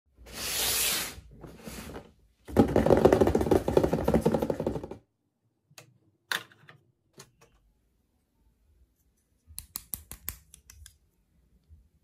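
A loud burst of rapid rattling clatter for the first few seconds, then scattered light clicks and taps of small hard plastic toy food pieces being picked up and set down on a plastic toy display, with a quick run of clicks near the end.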